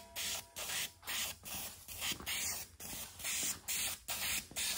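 Aerosol spray-paint can hissing in short, quick bursts, two or three a second, as paint is sprayed onto a washing machine's inner tub.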